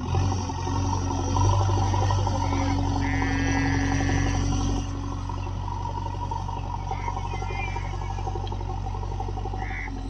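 JCB 3DX backhoe loader's diesel engine running as the machine drives along, louder for the first five seconds and then settling to a steadier, lower note. A brief high chirping sound rides over it about three seconds in.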